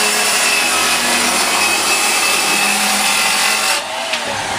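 Circular saw ripping through a sheet of tongue-and-groove OSB in one steady, loud pass. Near the end the cutting noise drops as the blade runs off the edge of the board and the motor starts to wind down.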